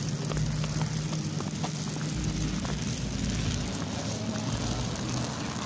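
Heavy drag chain scraping and rattling along pavement as a dog pulls it, with scattered clicks over a steady low hum that fades about halfway through.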